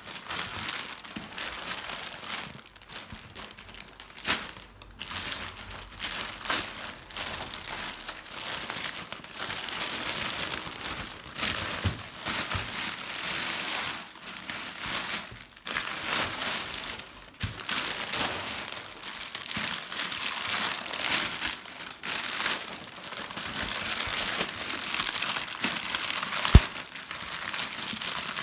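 Plastic packaging crinkling and rustling steadily as hands open a plastic mailer bag and handle the clear plastic bag wrapped around the item, with one sharp click near the end.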